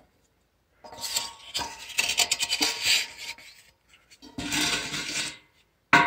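Wooden paint stirrer scraping oily fabrication residue out of a steam boiler's skim tapping, rapid scraping strokes against metal in two spells, the first starting about a second in. A sharp metallic clank right at the end.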